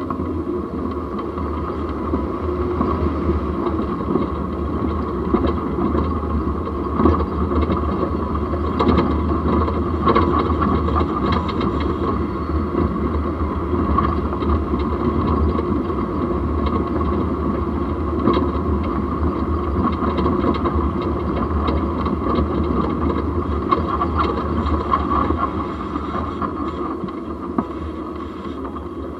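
Jeep being driven, heard from a camera mounted at its front axle: a steady rumble of drivetrain and tyres, with scattered short knocks from the running gear.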